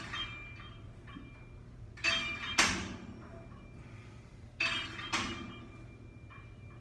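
Cybex FT325 cable pulley machine clanking with each rep: sharp metal-on-metal clanks with a short ring, in pairs about half a second apart, coming roughly every two and a half seconds.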